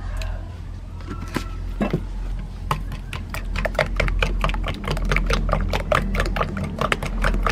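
Metal spoon beating a raw egg mixture in a white ceramic bowl, clinking against the bowl. A few scattered taps give way, about three seconds in, to a quick, even run of about six clinks a second.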